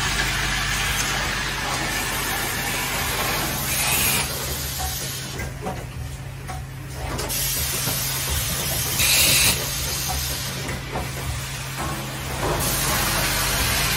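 Automatic plastic water-tap assembly machine running with a steady low hum, its pneumatic cylinders letting out short hisses of exhaust air a few times, the loudest about nine seconds in and a longer one near the end.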